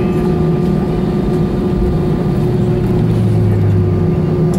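Airbus A320 cabin noise while taxiing after landing: the jet engines running at idle as a steady hum with a few constant tones. A deeper low hum swells for about a second near the three-second mark.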